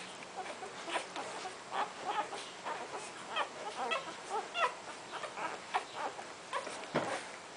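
Newborn golden retriever puppies squeaking and grunting while they nurse, many short high squeaks coming several a second.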